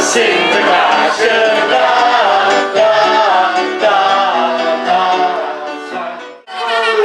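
Loud music with singing, briefly cutting out near the end before starting again.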